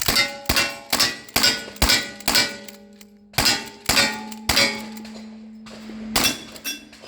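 A rapid string of gunshots, about two a second, each answered by the ringing clang of struck steel targets, with a lingering ring through a pause of over a second and two more shots near the end.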